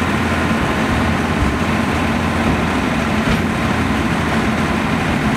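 Small forest-railway train running: a steady engine hum with a continuous rumble of wheels on rails, heard from an open trolley passenger car.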